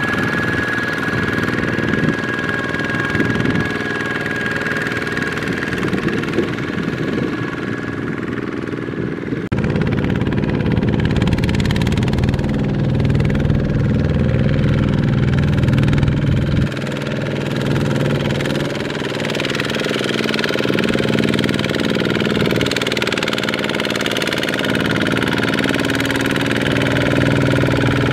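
Single-cylinder diesel engine of a two-wheel walking tractor running steadily under load while it pulls a loaded trailer through mud. The engine note changes abruptly about a third and about two thirds of the way through.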